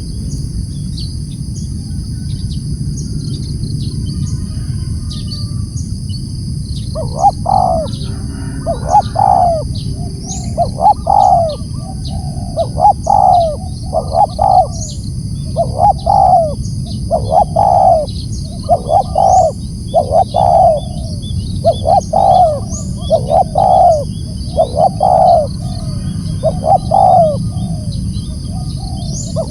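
Spotted dove (tekukur) cooing: low, paired coo phrases starting about seven seconds in and repeating steadily about every two seconds. Small high chirps and a steady high hiss run underneath.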